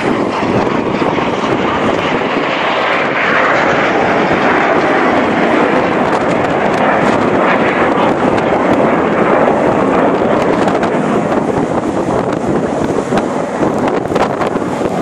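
Jet engine noise from a Red Arrows BAE Hawk T1, whose Rolls-Royce Adour turbofan is heard as the aircraft flies a smoke-trailing pass. The noise is loud and continuous, brightest a few seconds in and slightly lower in pitch later on.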